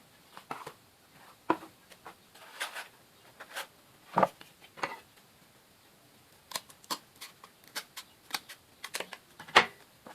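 Irregular sharp clicks and taps of cardboard being worked by hand, coming singly and in small clusters, the loudest near the end.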